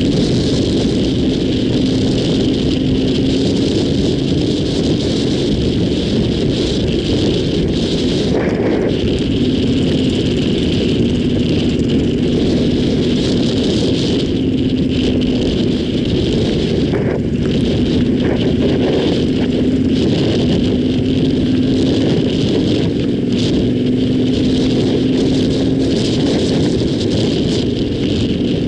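Yamaha Ténéré 700's parallel-twin engine running at a fairly steady pace while riding, its tone wavering slightly, under a steady rush of wind and tyre noise.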